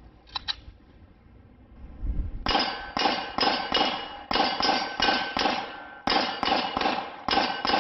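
Glock 19 in a CAA Micro Conversion Kit firing 9mm rounds in fast strings, about three shots a second, each hit followed by the ring of steel targets. The firing starts about two and a half seconds in and goes on in short bursts with brief pauses.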